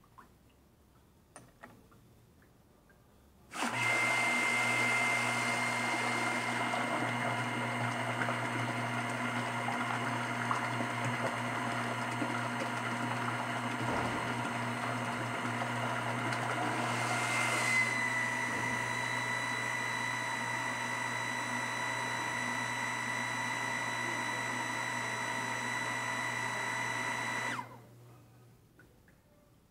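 Small electric water pump under automatic pressure control, running on a water test: it starts abruptly about four seconds in and runs steadily with a motor hum, a high whine and a rush of water. The whine dips slightly about halfway through, and the pump cuts off suddenly near the end.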